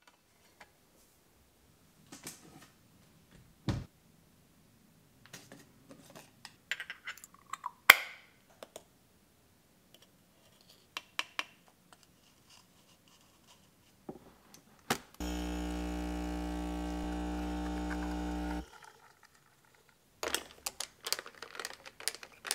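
Espresso being made: scattered clicks and knocks of the metal portafilter and tamper being handled, then the espresso machine's pump running as a steady buzzing drone for about three and a half seconds before it stops, followed by a few more clinks.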